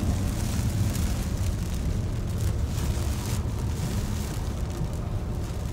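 Steady low rumble with a hiss over it, heard inside a car driving through heavy rain: road and car noise mixed with rain on the body and windows.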